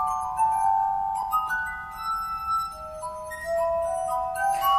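Glass harp: wine glasses rubbed around their rims, playing a slow melody of sustained, overlapping ringing tones.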